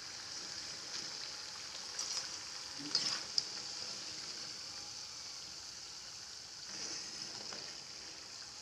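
Battered idli pieces sizzling steadily as they deep-fry in hot oil, fried to golden brown. A few light clicks of the metal slotted ladle and wire strainer come about two and three seconds in, as the pieces are lifted out.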